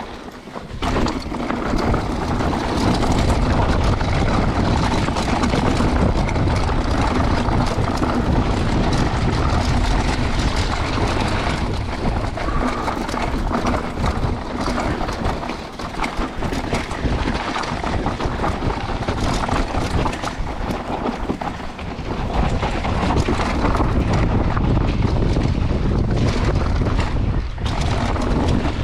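Mountain bike descending a downhill dirt trail at speed: constant wind noise buffeting the action camera's microphone, with the rattle and knocks of tyres and frame over the rough ground. It is briefly quieter at the very start, then loud from about a second in.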